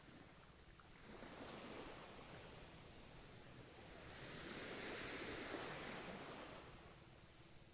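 Ocean surf: a wave washes in about a second in, then a larger one builds and breaks around five seconds before subsiding.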